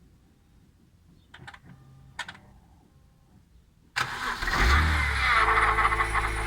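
BMW E90 323i's 2.5-litre straight-six cranked and started about four seconds in, the revs swelling briefly and then settling to a steady idle. Over the engine note comes a loud high rushing noise, the strange engine noise the owner is asking about. Earlier, two faint clicks.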